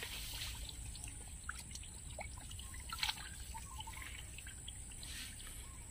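Faint trickling and dripping of shallow muddy water stirred by hands groping in the mud, with a few small splashes.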